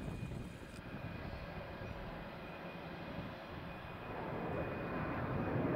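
Airbus A330-200 jet engines running at taxi power: a steady low rumble with a faint high whine, growing louder about four seconds in.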